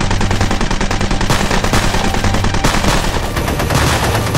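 Rapid automatic gunfire, a fast unbroken run of shots, over background music with steady low notes.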